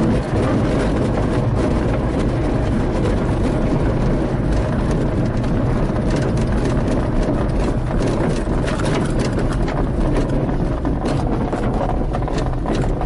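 Astir CS 77 glider rolling out on grass after landing, heard from inside the cockpit: the single main wheel rumbles over the uneven ground while the fuselage rattles and knocks with the bumps. It eases off slightly near the end as the glider slows.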